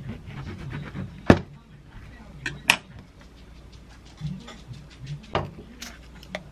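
Serrated knife sawing through a whole-wheat bagel on a wooden cutting board, followed by a sharp knock about a second in and several lighter clicks and knocks as the knife and bagel halves are handled on the board.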